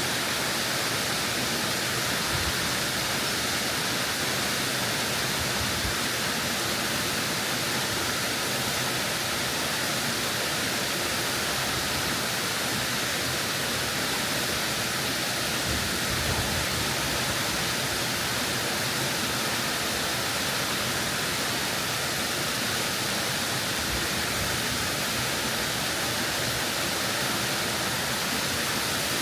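Shin-taki waterfall pouring, heard from close beneath it: a loud, steady, unbroken rush of falling water.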